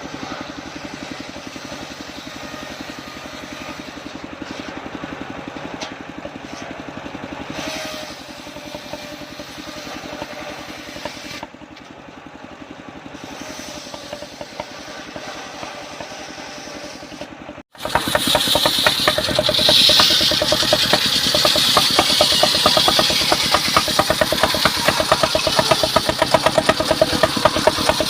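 Engine of a portable circular-saw sawmill running steadily. After a sudden break about two-thirds of the way in, it is much louder, with a high hiss added on top.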